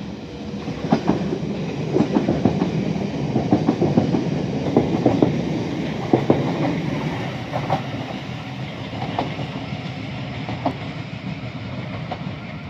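Thameslink Class 700 electric multiple-unit passenger train passing beneath, its wheels clattering and clicking over the rail joints. The sound builds to its loudest a few seconds in, then eases as the train runs away round the curve.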